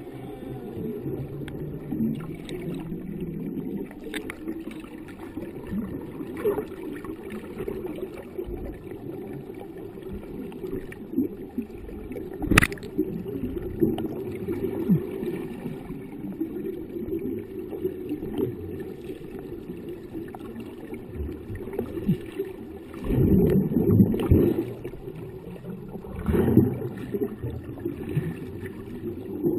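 Muffled water sloshing and gurgling, heard from just under the sea surface, as a steady low rush. There is one sharp click about twelve seconds in, and louder gurgling rushes about 23 and 26 seconds in.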